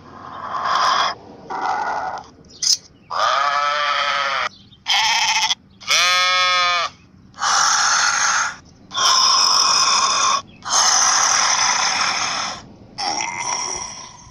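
A pony making a run of about ten short, weird bleat-like calls with brief gaps between them. Some calls have a clear pitch, one dipping and then rising again.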